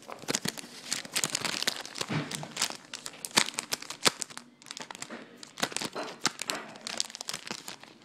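Foil wrapper of a Pokémon trading-card booster pack being ripped open and crinkled by hand: a dense run of sharp, irregular crackles and rustles, with a short lull about halfway through.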